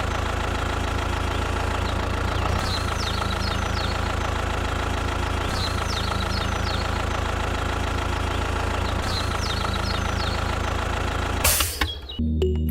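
Engine idling steadily with a low rumble, with faint short high chirps recurring about every three seconds. It cuts off about a second before the end, and music starts.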